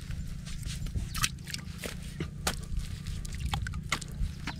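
Metal shovel digging into wet mud: irregular squelches and scrapes as the blade cuts and levers the mud, over a steady low rumble.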